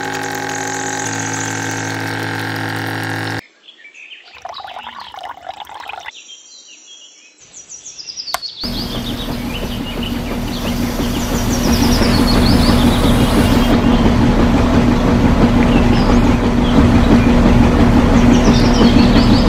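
A small electric motor running a miniature water pump, a steady hum with water pouring. About a third of the way in it is followed by a small motor driving a miniature concrete mixer, a louder steady hum over a gritty churning of the wet mix. Short high bird chirps sound over the mixer.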